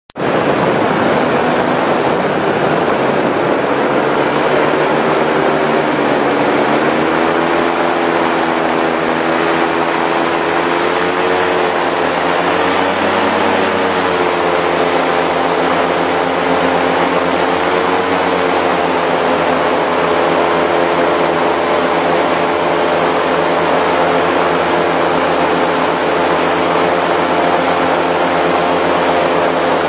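Airboat's engine and air propeller running at speed, a loud steady drone whose pitch wavers and climbs a little about a quarter of the way in, then holds steady.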